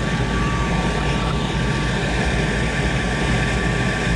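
Goodman GPG gas pack running in a heating start-up: a steady mechanical hum with a steady high-pitched whine over it.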